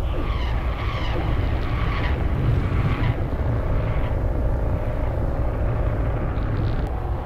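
Car driving: steady low engine and road rumble.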